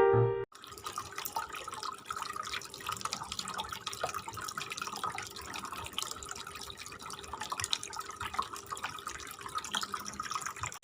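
Water splashing and trickling steadily down a small cement waterfall fountain fed by a mini water pump, starting suddenly about half a second in.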